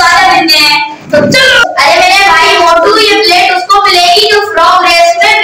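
A child singing a melody in long held, wavering notes, with a short break about a second in.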